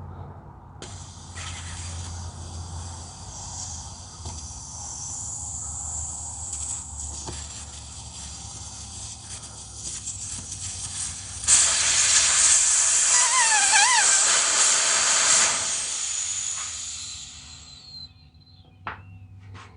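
Air hissing out of a lawn tractor tire through the valve stem as the valve core is unscrewed. A steady hiss starts about a second in and grows much louder past the middle, with a brief warbling whistle. It then dies away as the tire empties.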